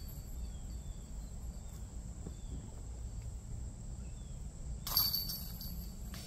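Steady high-pitched insect trilling over a low rumble, with one sharp clink about five seconds in.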